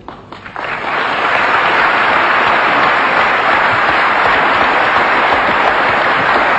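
Audience applause in a crowded hall, swelling up within the first second and then holding steady and loud.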